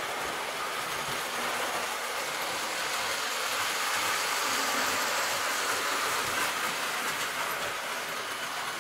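Prewar Lionel 265E O-gauge toy train running on O track laid on homosote: the quiet hum of its electric motor and the clickety-clack of its wheels over the rail joints. It grows a little louder around the middle as the train passes close.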